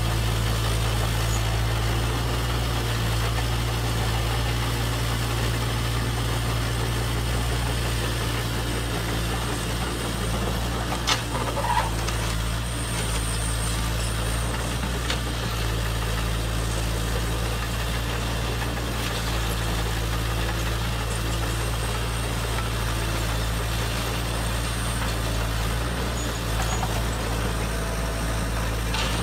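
Steady low engine idling drone from an RC cable excavator, with a couple of short clicks about eleven seconds in.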